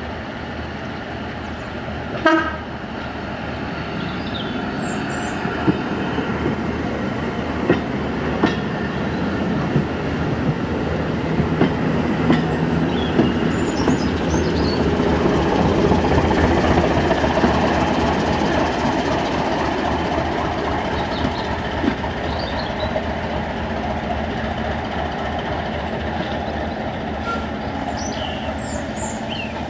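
Diesel train running slowly past, its engine sound building to a peak about halfway and then fading. Scattered knocks are heard along with it, including a short, sharp pitched one about two seconds in. Faint bird chirps are heard above it.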